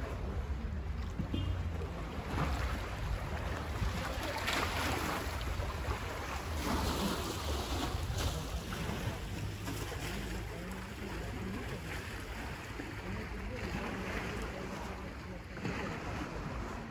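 Wind buffeting the microphone over the soft wash of small waves on the sea, swelling and easing every second or two.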